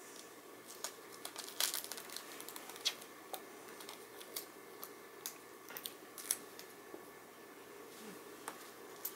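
Hands handling cellophane tape on a hanging plastic baby-mobile toy: faint, irregular crinkles and small clicks.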